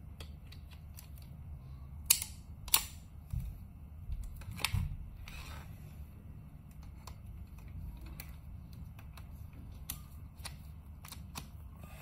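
Sharp plastic clicks and knocks as a C7 adaptor and a multi-port charger are handled and fitted together, the loudest two clicks coming about two seconds in, with fainter clicks later. A low steady hum runs underneath.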